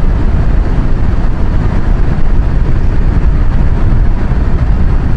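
Steady wind rush on a helmet-mounted microphone as a 2014 Kawasaki Versys 1000 cruises on an open road, its inline-four engine under the wind noise.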